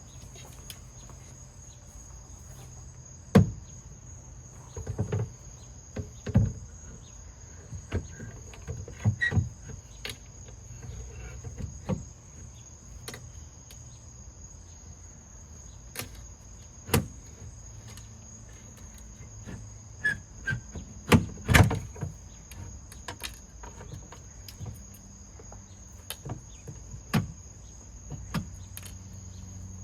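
Crickets chirping steadily in the background, with scattered sharp knocks and clicks of hands and tools working on a car door's window and regulator. The loudest knocks come about three seconds in and a cluster comes past the twenty-second mark.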